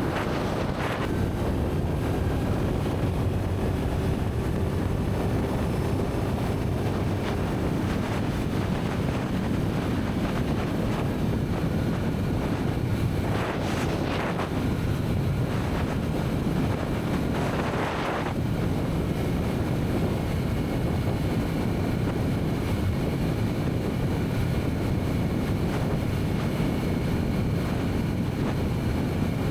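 Wind rushing over the microphone while riding a Kawasaki Z900 motorcycle, with its inline-four engine running underneath. Two brief louder hisses come about fourteen and eighteen seconds in.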